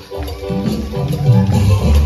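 Loud dance music with a strong bass line accompanying the bull dance; the music dips for a moment right at the start, then comes back in full.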